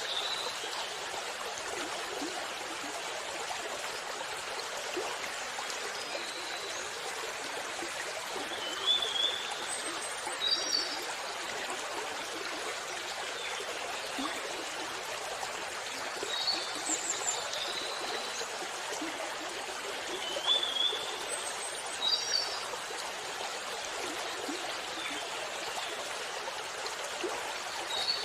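Water running steadily in an even rush, with short high bird chirps breaking through every few seconds.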